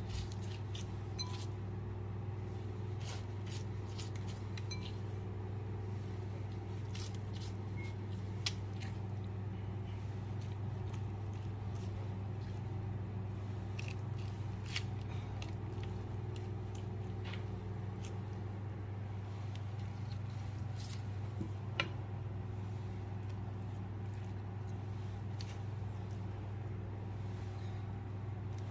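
Steady low electrical hum from a running kitchen appliance, with a few faint clicks and scrapes from a utensil spreading sauce over breaded chicken on a baking tray.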